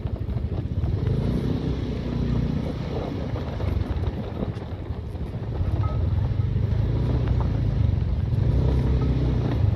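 Motorcycle engine running while riding, a steady low rumble that grows louder about halfway through.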